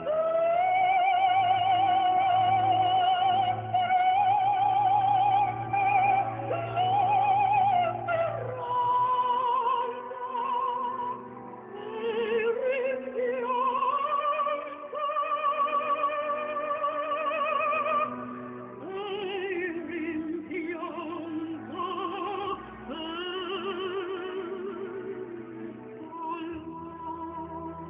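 Background music: a slow melody of long held notes with heavy vibrato, operatic in style, over sustained low chords.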